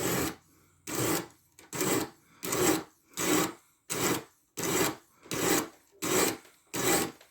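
Diamond sharpening stone on a guided knife sharpener scraping along a 14C28N steel blade edge in about ten push-only strokes, roughly one every 0.7 seconds. The stone is lifted off between strokes, not dragged back.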